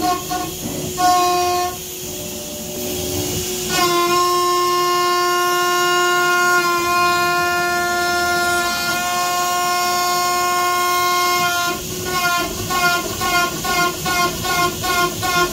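PrintNC CNC router making high-speed rapid moves: the axis motors give a steady, high-pitched whine through a long traverse of several seconds, then pulse with short quick moves about three times a second near the end.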